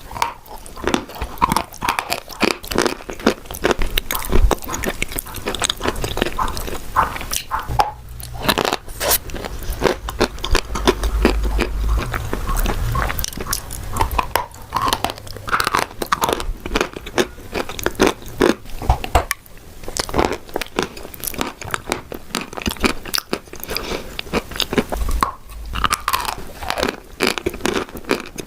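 Chalk coated in a blue clay cream being bitten and chewed close to the microphone: a steady run of dry, sharp crunches and snaps with chewing between them.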